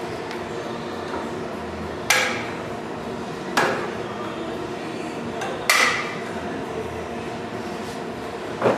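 Four hammer blows on car body sheet metal, spaced irregularly about one and a half to two seconds apart, each with a short metallic ring. A steady mechanical hum runs underneath.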